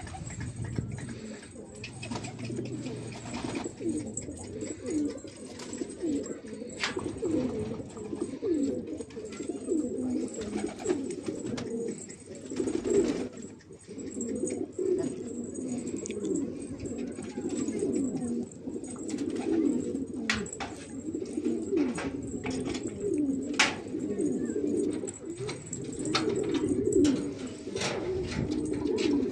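A flock of domestic pigeons cooing continuously, many birds overlapping in a low, wavering chorus. Occasional sharp clicks and taps come through it.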